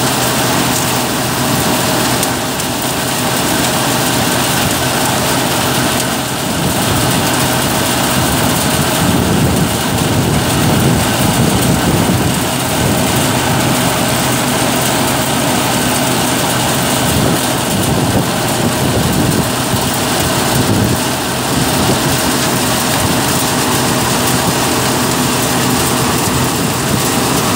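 Tractor-driven Geeta groundnut thresher running steadily under load, its drum threshing peanut plants with a steady rushing noise of haulms and chaff, over the steady hum of the tractor engine that drives it.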